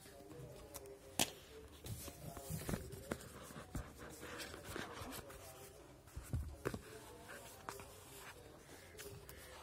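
Cardboard smartphone box being handled and opened by hand: scattered light scrapes, rubs and clicks of the cardboard, with one sharp click about a second in.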